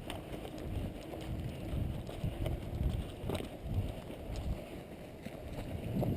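Footsteps of a person walking, thudding irregularly, under wind buffeting a body-worn GoPro microphone, with one sharp click about three seconds in.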